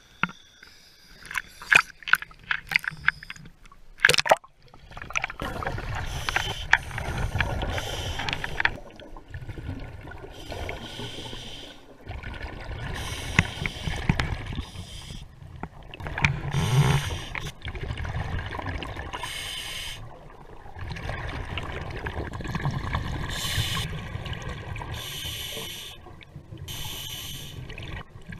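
Scuba diver breathing through a regulator, heard through an underwater camera housing: bursts of gurgling exhaled bubbles and hissing breaths, repeating every few seconds. The first few seconds hold sharp splashes and clicks as the diver goes under.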